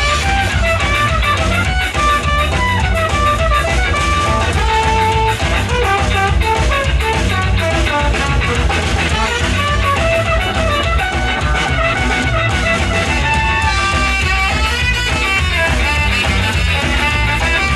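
Ska-punk band playing loudly and without a break: electric guitar over a drum kit beat.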